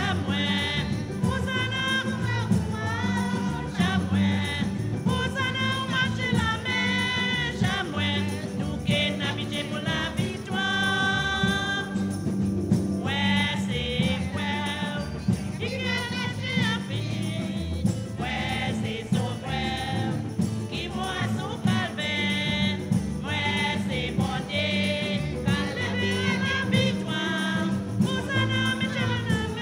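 Church congregation and choir singing a hymn, accompanied by jingling percussion that keeps a rhythm under the voices.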